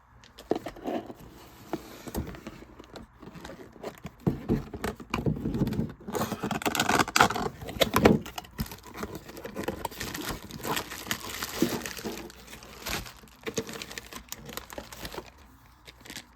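Plastic packaging being handled: bags crinkling and rustling with irregular clicks and small rattles, busiest in the middle.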